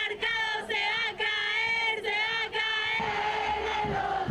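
Crowd of women protesters singing a chant in unison, in short rhythmic phrases with brief breaks between them. About three seconds in it gives way to a rougher mix of many voices shouting.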